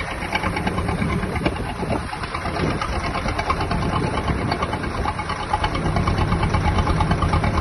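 An engine running steadily with a fast, even knocking beat, getting a little louder in the last couple of seconds.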